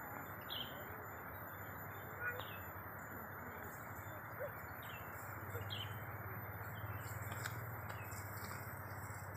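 A bird repeating a short, high, falling chirp every second or two, over a steady outdoor hiss.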